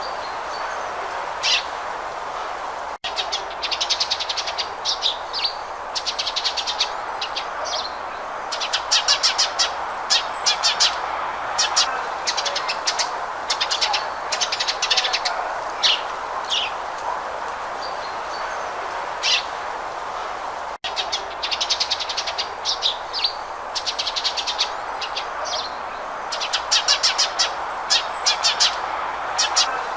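House sparrow chirping: short, sharp chirps, often in quick runs, over a steady background hiss. The sound cuts out for an instant twice, at about 3 seconds and near 21 seconds.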